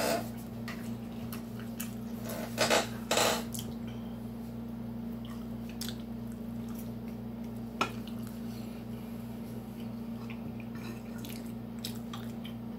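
Someone eating with a metal fork from a bowl: soft chewing and mouth clicks, with the fork tapping and scraping the dish. Two louder bursts come about three seconds in and a sharp tap near eight seconds, over a steady low hum.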